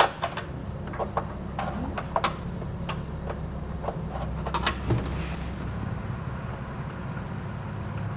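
Scattered light clicks and taps of hands removing small nuts and handling a plastic tow-hook cover under a pickup's front bumper, over a steady low hum.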